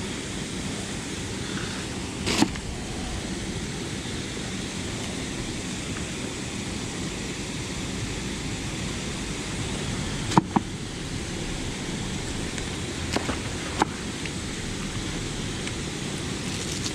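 Scrap metal being pulled off a fishing magnet by gloved hands, giving a few sharp clinks: one about two seconds in, a quick pair about ten seconds in and two more a few seconds later, over a steady rushing background noise.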